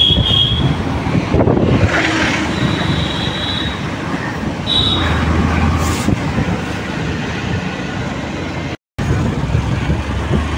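Riding noise from a moving road vehicle: a steady low engine rumble with wind on the microphone, broken by a few short high-pitched beeps in the first half. The sound cuts out for a moment near the end.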